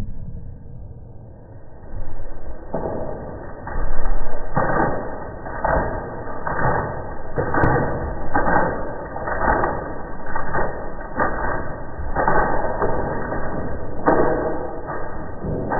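Towel rubbing against a wet poodle's coat just after its bath: repeated swishing strokes, about one or two a second, starting a few seconds in, with a couple of small clicks.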